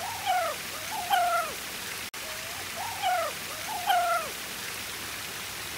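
A Labrador puppy whining at the creek's edge, four short rising-and-falling whines in two pairs, as she hesitates to go into the water she wants to enter. Steady running-water noise of the creek is underneath.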